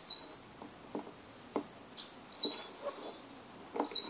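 A bird chirping: three short, high chirps about a second and a half apart, with a few faint light clicks in between.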